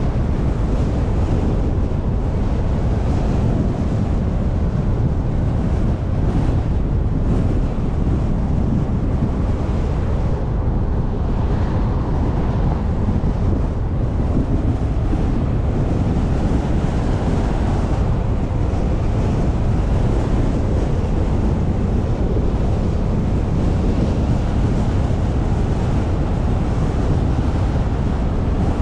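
Steady wind buffeting the microphone of a camera on a moving car, over a rumble of road and tyre noise.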